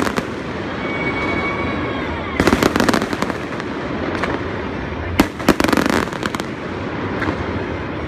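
Aerial fireworks bursting in two volleys of rapid crackling bangs, the first about two and a half seconds in and the second about five seconds in, over a steady background din.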